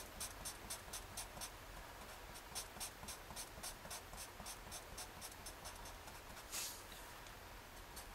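Black felt-tip marker scratching on paper in quick short back-and-forth strokes, several a second, as a dark area is shaded in. About six and a half seconds in, there is one longer stroke.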